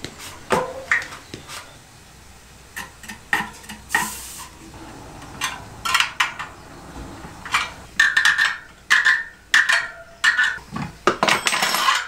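Metallic clicks and clinks of a newly built fat-bike wheel's spokes being worked, as the wheel is stressed underfoot and then its spokes are tightened in a truing stand. In the second half comes a run of short ringing pings.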